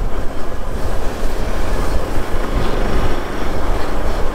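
Steady road rumble and wind noise from a moving vehicle, a low rumble with wind buffeting the microphone.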